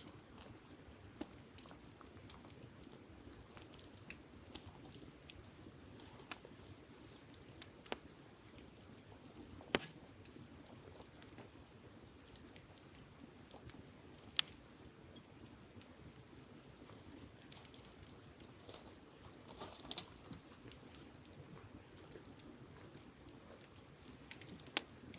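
Wood campfire crackling: irregular sharp pops and snaps, a few of them louder, over a faint steady hiss.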